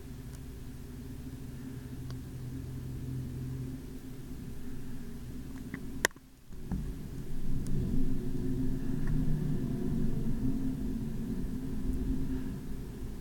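A low, steady rumble with a hum. About six seconds in comes a single sharp click, the sound drops out for a moment, and the rumble returns a little louder.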